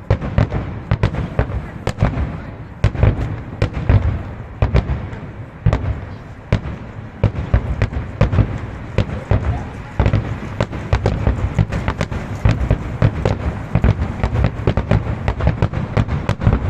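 Fireworks display: a dense, continuous barrage of shells bursting, bang after bang in quick succession.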